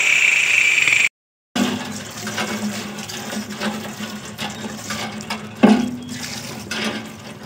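Water from a hand pump pouring into and splashing over a clay pot as it is rinsed by hand, with a single sharp knock a little past the middle. It opens with about a second of steady hiss that cuts off abruptly.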